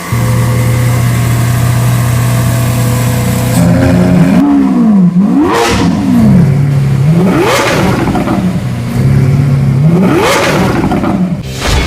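Lamborghini Aventador LP700-4 Roadster's 6.5-litre V12 idling steadily, then revved three times, each rev rising sharply and dropping back to idle.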